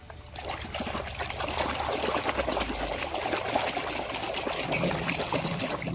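Water pouring and trickling over a muddy toy as it is rinsed clean, with a steady splashing flow.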